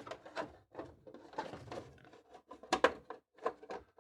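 Hands fitting a battery pack into an RC truck: an irregular run of plastic clicks, taps and rubbing, with two sharper clicks close together about three quarters of the way through.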